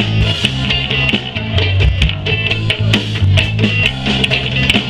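Live rock band playing an instrumental passage between vocal lines: electric guitar, bass guitar and drums, with a steady drum beat and no singing.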